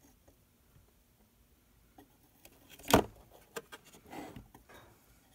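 Small tabletop handling noises while working on a plastic scale model: one sharp knock about three seconds in, then a few light clicks and a soft rustle.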